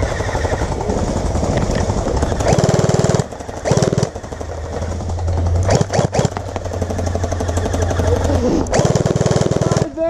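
Electric gel blasters firing on full auto in bursts, a fast mechanical rattle. The longest bursts come about two and a half seconds in, briefly again around four seconds, and near the end.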